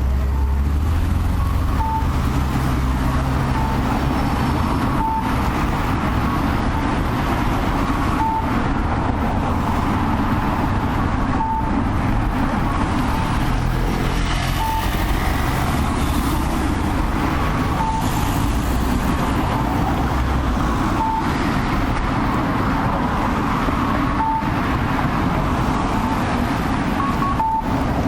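Electronic cuckoo tones from a Japanese audible pedestrian crossing signal, alternating the "kakkō" and "kaka-kō" calls and repeating about every second and a half. Steady road traffic rumbles underneath.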